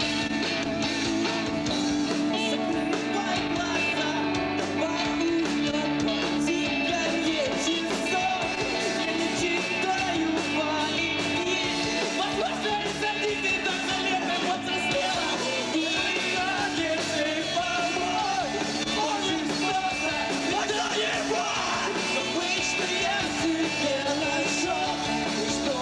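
Emo rock band playing live: electric guitars, bass and drums with a singing voice over them, in a rough, loud room recording.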